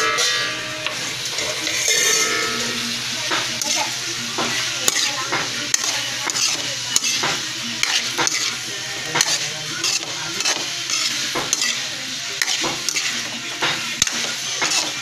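Spatula scraping and knocking against a large aluminium wok while bitter melon is stir-fried, about one or two strokes a second, over a steady sizzle of frying.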